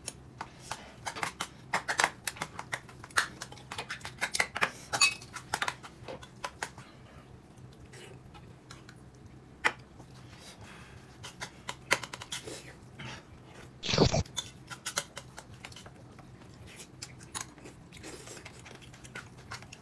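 Eating at a table: close chewing with many small clicks and taps of tableware, busiest in the first few seconds and sparser after, and one louder knock about 14 seconds in.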